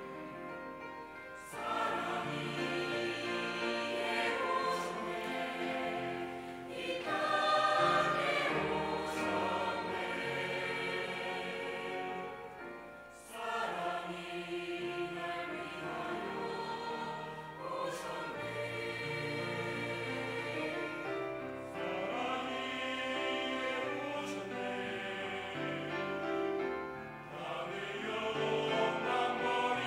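Mixed church choir singing a Korean anthem in several parts with piano accompaniment, phrase by phrase with short breaks between lines.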